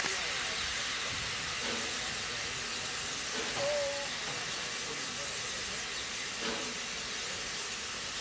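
Finnish Tk3-class steam locomotive no. 1136 standing with steam hissing steadily, a high, even hiss with no exhaust beats.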